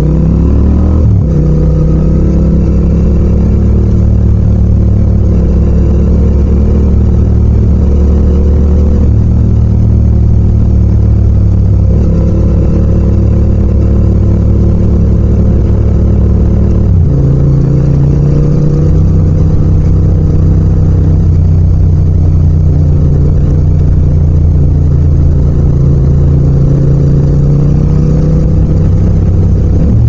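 Yamaha MT-07's 689 cc parallel-twin engine running under way. The engine note changes abruptly about a second in and again at around seventeen seconds.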